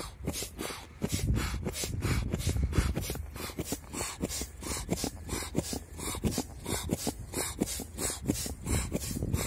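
Air pump inflating a PVC inflatable boat through a hose, a rhythmic hissing of air pulses about four times a second.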